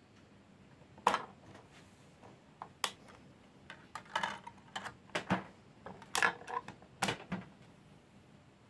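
1991 Technics portable CD player being loaded by hand: plastic clicks and snaps as the lid pops open, a CD-R is pressed onto the spindle and the lid is shut. A sharp click about a second in, a cluster of clicks and rattles in the middle, and a last snap about seven seconds in.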